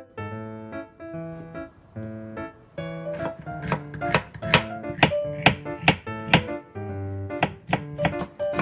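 Knife chopping on a cutting board in quick, uneven strokes, starting about three seconds in, over light piano background music.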